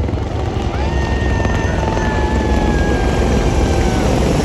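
Formation of Apache attack helicopters flying low overhead, their rotors beating heavily, with a thin high whine that slides slightly down in pitch from about one second in to about four seconds in.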